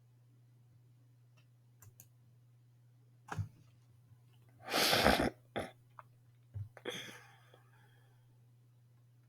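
A few sharp clicks and knocks and a brief loud rustle about five seconds in, over a low steady hum.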